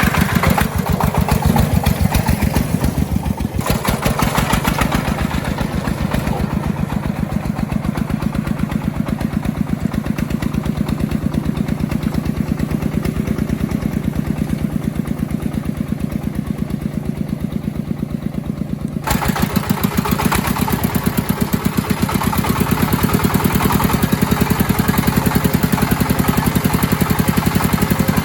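Agricultural vehicle's engine running with a steady, even rhythm of firing pulses; it grows louder about two-thirds of the way through.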